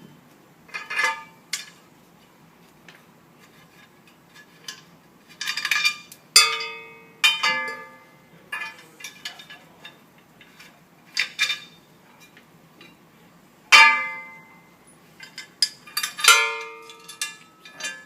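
Metal hardware clinking and clanking as bolts and fittings are taken out of metal patio table legs and handled. Scattered light clicks, with a few louder ringing clanks about six, seven, fourteen and sixteen seconds in.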